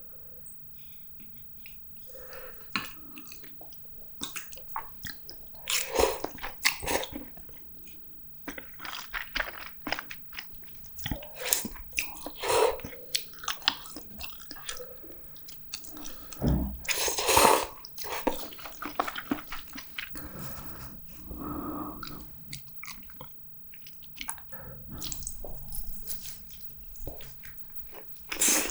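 Close-miked eating sounds: a person chewing and biting food with wet mouth clicks throughout, broken by a few louder noisy bursts about 6, 12, 17 and 28 seconds in.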